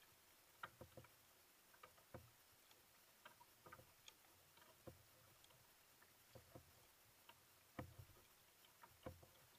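Faint paddling sounds from an outrigger canoe: small clicks, drips and splashes of a single-blade paddle, with a slightly louder knock or splash about every second and a half as each stroke catches the water.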